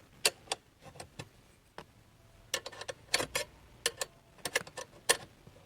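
A 10 mm wrench clicking and tapping as it is fitted to and turned on the console's nuts: a dozen or so irregular sharp clicks, some single and some in quick runs.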